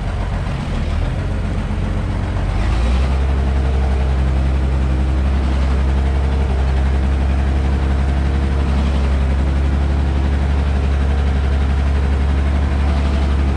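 Ursus 1214 tractor's diesel engine running steadily, heard from inside the cab. About three seconds in it grows louder and heavier as it takes up the load of the plough biting into the soil.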